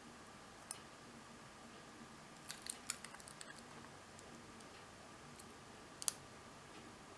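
Small metallic clicks of a pick working the pins of a 16-pin PAPAIZ cruciform padlock: a single click, a quick run of clicks about three seconds in, then a sharp double click about six seconds in.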